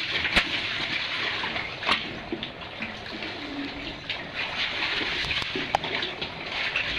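Cave stream running steadily through a flooded passage, with a few sharp clicks and knocks over it.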